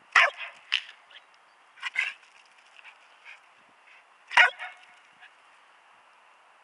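Jack Russell terrier barking in a few short, sharp barks, the loudest about four and a half seconds in, each bark coming back off the street as an echo, which the dog answers as if another dog were barking back.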